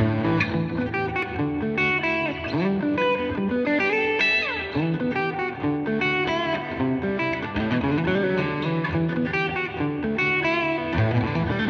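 Suhr Classic T electric guitar played through an Audio Kitchen The Big Trees amp and a Strymon Iridium set to a Fender-style sound, picking melodic lines and chords built on triad shapes. It slides between notes a few times.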